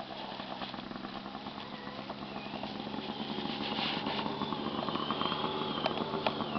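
Snowmobile engine running with a wavering high whine, growing louder as the sled comes down the slope.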